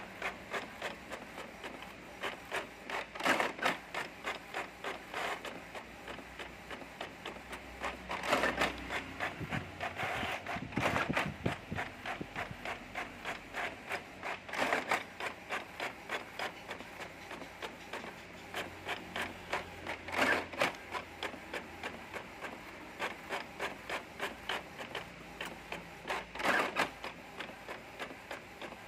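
Epson L550 inkjet printer printing: the print-head carriage shuttles back and forth in a quick, regular rhythm of mechanical passes. Louder bursts come every few seconds.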